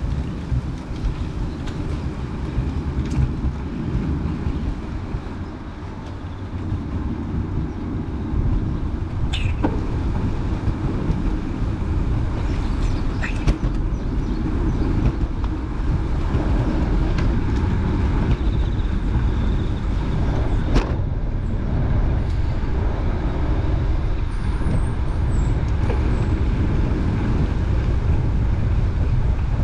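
Steady low rumble of wind buffeting the microphone, mixed with road traffic noise, with a few sharp clicks.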